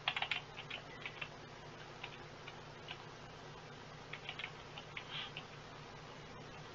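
Faint, irregular clicking at a computer: a quick cluster of clicks at the start, scattered single ticks, then another cluster about four seconds in, as pages are changed in a PDF viewer.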